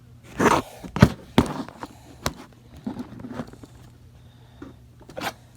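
Handling noises from plastic toys and gear being moved about on a table: a rustle, then several separate sharp knocks and clicks, with the last one near the end.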